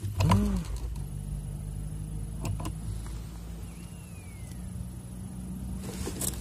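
A low, steady engine drone, with two faint clicks about two and a half seconds in.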